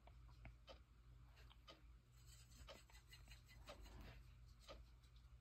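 Near silence, with faint scattered ticks and light scratches of a watercolor brush dabbing paint onto paper and dipping into the paint palette.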